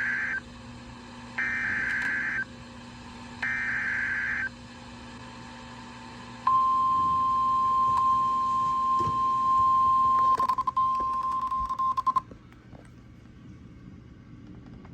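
NOAA Weather Radio emergency alert tones: three one-second bursts of buzzy SAME digital header data, then the steady 1050 Hz warning alarm tone for about six seconds, stuttering just before it cuts off. This sequence signals that a new warning is about to be read. A low receiver hum is left after the tone.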